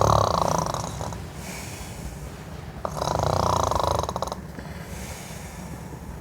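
A person snoring: two long, rattling snores about three seconds apart.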